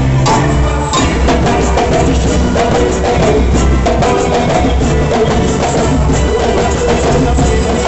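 Boi-bumbá toada played live by a band, driven by heavy drums and percussion.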